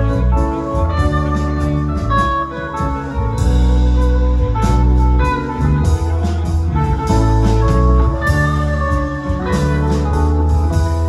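Live rock band playing an instrumental passage: electric guitar lead over a stepping bass line and drum kit.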